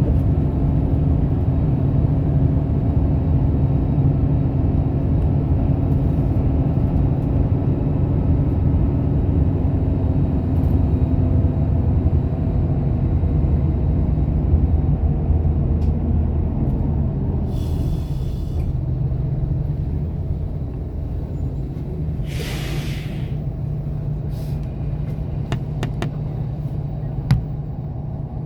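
Bus engine and road rumble heard from inside the cabin, easing off in the second half as the bus slows. Two short hisses of the air brakes come in the second half, followed by a few light clicks near the end.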